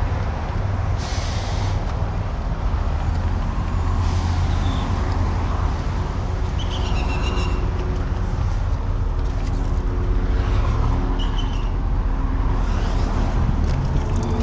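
Steady low vehicle rumble outdoors, with a few brief faint high chirps.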